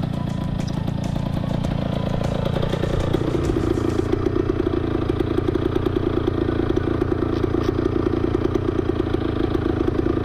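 A 1972 Yamaha LT2 100's small single-cylinder two-stroke engine running under way, with wind noise. About three seconds in the fast-pulsing engine note grows stronger and the wind hiss drops.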